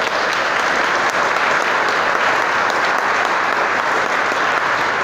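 Congregation applauding: a dense, steady clapping from many hands.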